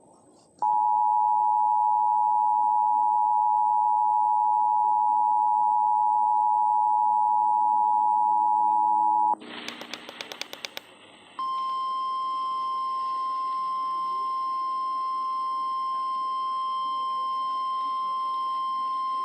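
Emergency Alert System tones on FM radio announcing a tornado warning: the two-tone attention signal held steady for about nine seconds, a second or two of clicks and noise, then the single 1050 Hz NOAA Weather Radio warning tone, steady for about eight seconds.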